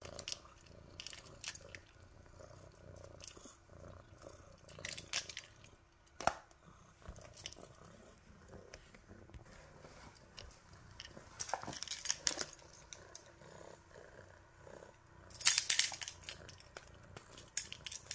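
Orange tabby kitten purring steadily while it plays, with scattered bursts of sharp clicks and scratchy rustles, the loudest a few seconds before the end.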